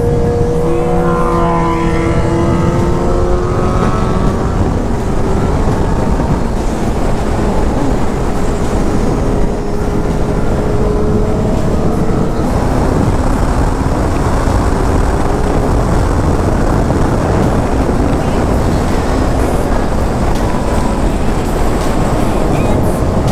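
Honda Hornet 600's inline-four engine running at highway speed, with heavy wind rush over the rider's camera microphone. The engine's tone shifts and eases over the first few seconds, then engine and wind noise hold steady.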